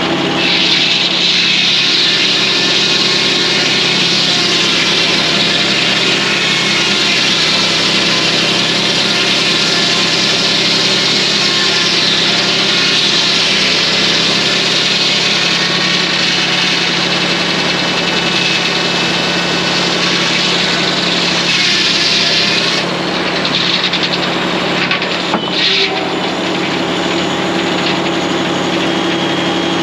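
Circular head saw of a circle sawmill cutting through a hemlock log: a steady, loud sawing hiss over the drone of the diesel engine powering it. The cut ends about twenty-two seconds in, and the saw and engine keep running, with a couple of knocks shortly after.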